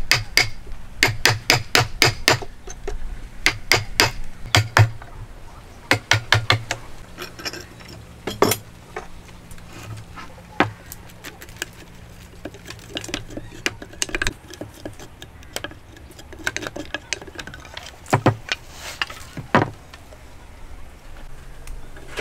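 Hammer striking a wood chisel to chop a mortise into a timber beam: quick runs of sharp blows, about four or five a second, for the first five seconds, then a short burst and scattered single knocks.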